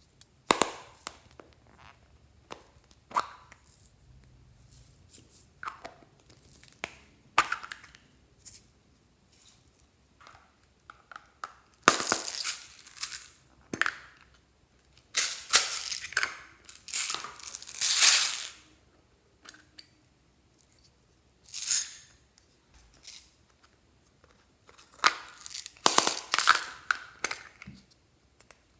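Hands working glossy slime with items mixed into it: irregular sticky crackles, crinkles and short tearing sounds, with short gaps between.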